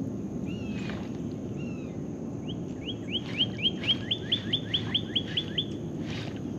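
A songbird singing: two single slurred whistles, then about two and a half seconds in a rapid run of about fourteen repeated whistled notes, roughly five a second, that stops suddenly about a second before the end.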